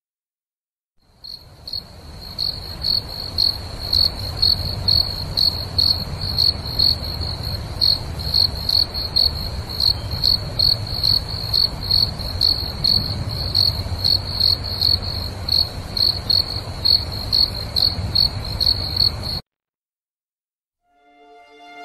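Recorded cricket chirping over a low rumble: regular chirps about twice a second, fading in about a second in and cutting off abruptly near the end.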